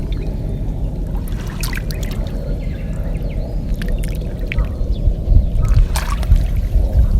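Water splashing and trickling off a kayak paddle in short, irregular bursts, over a steady low rumble.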